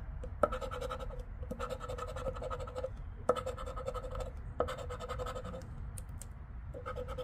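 A metal coin scraping the coating off a scratch-off lottery ticket in quick back-and-forth strokes. The scraping comes in several short runs with brief pauses between them, and there are a few sharp clicks.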